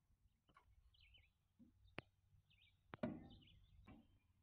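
Faint bird chirps over near-quiet outdoor air, with a sharp tap about two seconds in and a louder knock about a second later.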